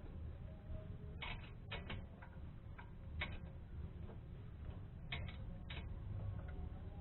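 Scattered, irregular light clicks and taps from tools and parts being handled during a rear brake pad job, some in quick pairs, over a low steady hum.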